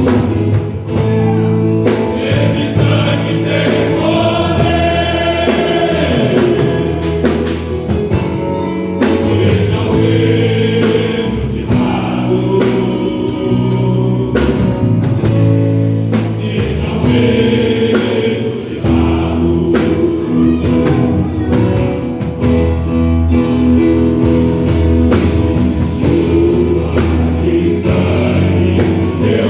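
Choir singing a gospel hymn with instrumental accompaniment, continuous sustained voices over a steady bass.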